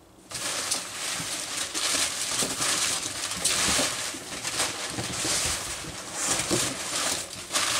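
Packing material in a shipping box rustling and crinkling as it is handled and pushed aside, with irregular louder crackles.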